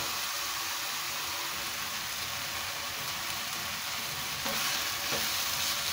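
Chicken legs and chopped onions sizzling steadily as they sear in hot oil in an uncovered frying pan, with a couple of faint knocks near the end.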